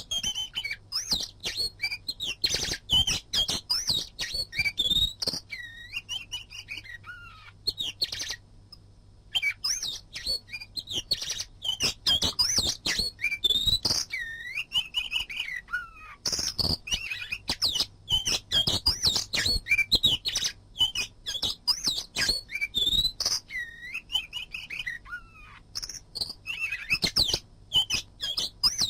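Oriental magpie-robin (kacer) singing: a rapid, varied run of loud whistles, chirps, sweeping notes and sharp clicking notes, broken by a short pause about nine seconds in.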